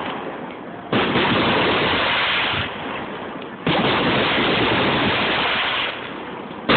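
Fireworks shells bursting, recorded on a phone: a sudden bang about a second in and another near four seconds, each followed by about two seconds of loud, dense noise that then drops away, with a further burst right at the end.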